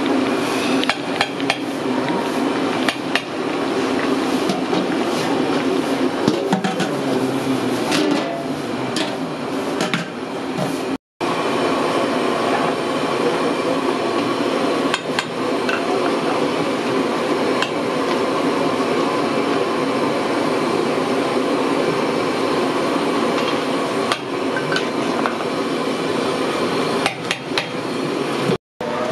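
Metal ladle clanking and scraping in a large aluminium pot of biryani rice, with many sharp clinks over a steady background noise. After a cut about a third of the way in, food deep-frying in oil in a large iron kadai, a steady hiss with fewer clinks.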